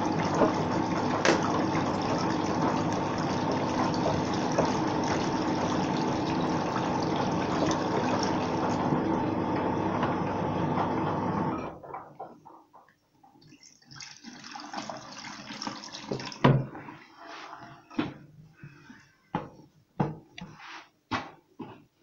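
Water running steadily into a plastic container for about twelve seconds, then stopping abruptly. It is followed by scattered drips, sloshes and small knocks of plastic.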